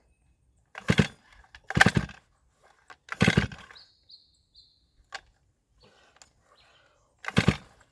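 Stihl MS500i chainsaw being pull-started: four sharp yanks on the starter cord, each a short rasp as the engine turns over, without it catching.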